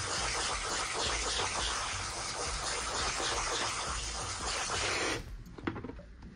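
Water running from a salon shampoo-bowl hose sprayer into a soapy basin, a steady hiss that cuts off suddenly about five seconds in.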